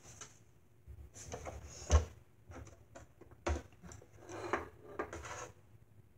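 Portable wooden tabletop easel being handled: a series of wooden knocks and clacks, with sliding and rubbing between them. The loudest knock comes about two seconds in.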